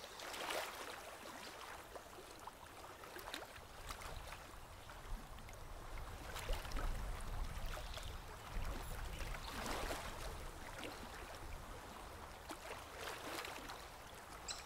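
River water lapping in soft washes every three seconds or so, with a low rumble for a few seconds midway.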